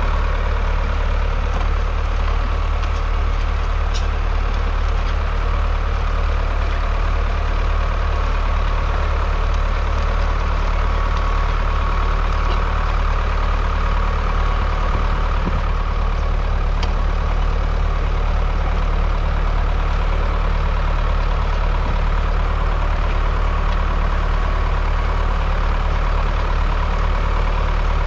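Ford 6410's 4.4-litre four-cylinder diesel engine running steadily under ploughing load as the tractor pulls a two-furrow reversible plough, its note unchanging throughout.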